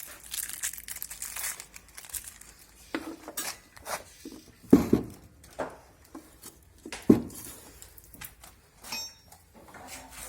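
Metal parts clinking and knocking as they are handled on a workbench while washing-machine bearings are replaced. There is light rustling at the start and two louder knocks, about five and seven seconds in.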